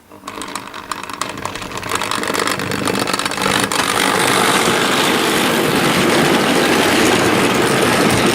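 Hornby Dublo model train running along the track, getting louder over the first four seconds and then running steadily.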